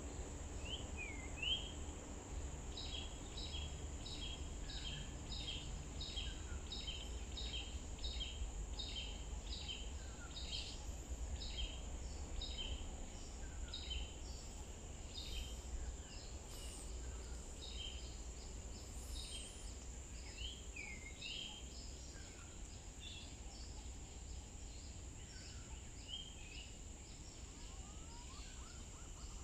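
Wild birds calling: one bird repeats a short high two-note call about twice a second, with a few other slurred chirps, over a steady high-pitched insect drone and a low rumble.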